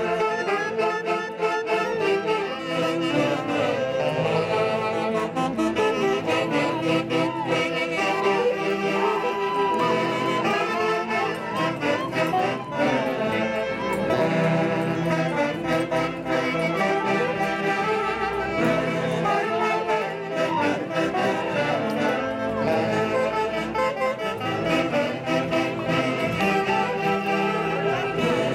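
Andean orquesta típica playing a tunantada dance tune, with saxophones carrying the melody over a steady accompaniment.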